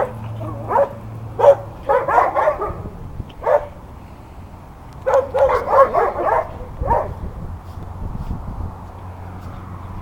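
Small dogs barking in short, high yelps, some single and some in quick runs of several, which stop about seven seconds in.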